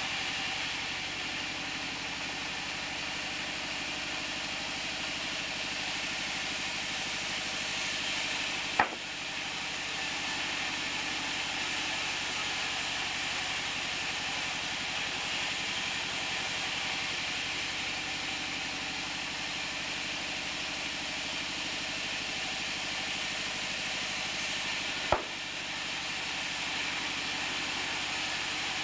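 Band sawmill running steadily, its blade cutting through a mango-wood plank with an even, hiss-like noise. Two sharp knocks, about nine seconds in and again about 25 seconds in.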